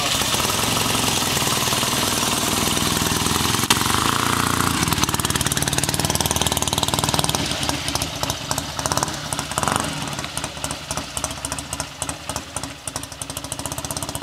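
1967 BSA Lightning 650's parallel-twin engine running at raised revs, then dropping back about eight seconds in to an uneven idle with separate firing pulses.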